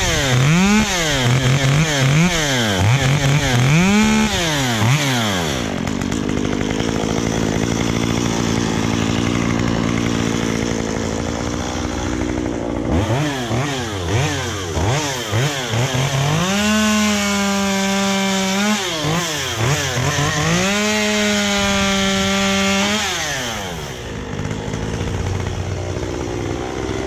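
Stihl MS193T two-stroke top-handle chainsaw. It is blipped up and down several times, then held at full throttle in two long runs while cutting through wood, and drops back to idle near the end. It screams at high revs, which the owner suspects may come from a muffler mod or porting.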